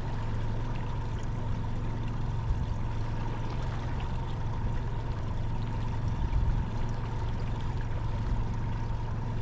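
Small fishing boat's motor running steadily at low speed, a low hum with a faint steady whine, with water washing along the hull.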